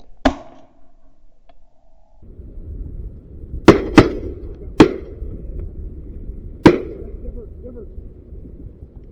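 Shotguns firing five shots at ducks: one fainter shot right at the start, then four loud blasts, two of them in quick succession, over several seconds. Wind rumbles on the microphone from about two seconds in.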